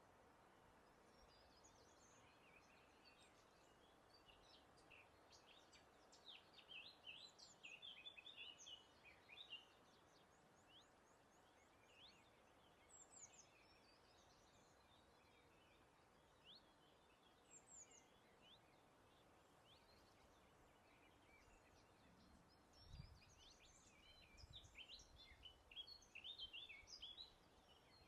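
Several songbirds singing and chirping faintly over a soft, steady hiss of breeze, with two busier bursts of song, one about a quarter of the way in and one near the end.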